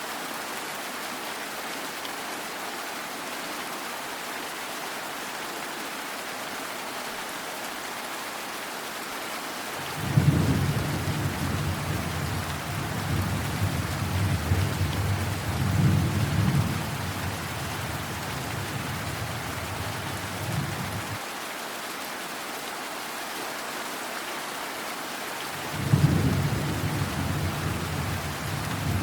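Steady rain with two rolls of thunder: the first starts about a third of the way in, swells twice and rumbles for about ten seconds before cutting off; the second begins near the end.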